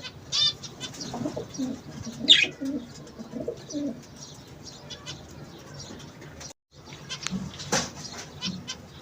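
Doves cooing in low, repeated calls, with a few short high chirps from smaller birds among them.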